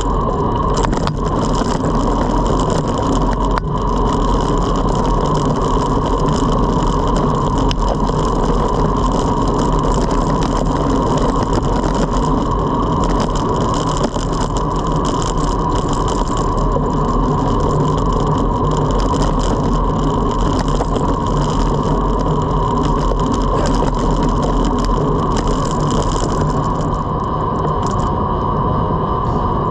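Trek Domane road bike riding along a paved road: steady noise from the tyres rolling on the asphalt and from the wind.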